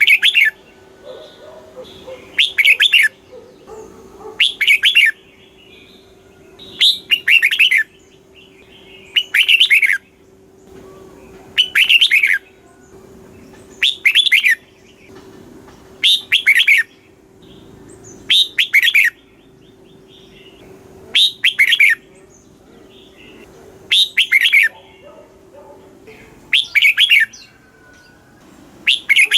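Red-whiskered bulbul singing, repeating the same short, quick phrase of warbled notes about every two and a half seconds.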